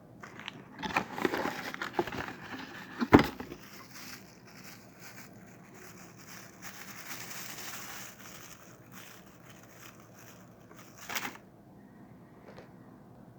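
Packaging being handled: crinkling and rustling with a run of clicks and one sharp knock about three seconds in, then softer rustling and a single click near the end.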